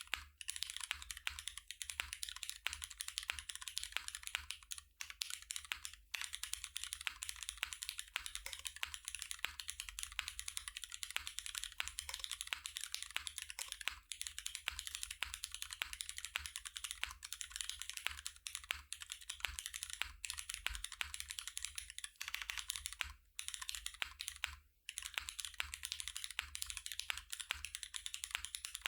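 Fast, continuous typing on a Cloudline V2 custom mechanical keyboard: a clacky, dense stream of key strikes with a few brief pauses, around 5, 6, 22 and 24 seconds in.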